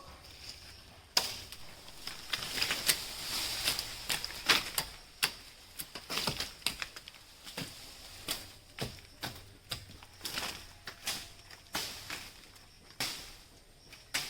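Irregular sharp clicks and knocks, several a second, over a steady high-pitched tone.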